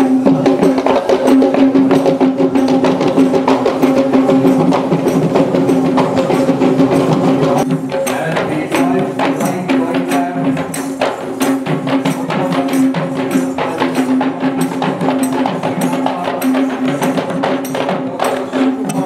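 Traditional Sri Lankan drums beaten in a fast, dense rhythm for a welcome dance, with a steady droning note held underneath.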